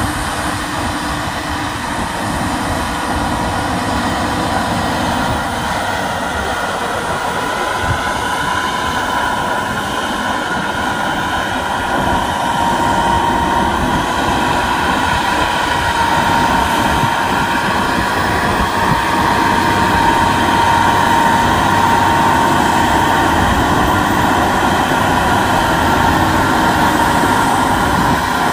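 Heavy diesel trucks labouring up a steep grade while hauling a wind-turbine blade: a loud, steady engine drone with a high whine that grows stronger about halfway through.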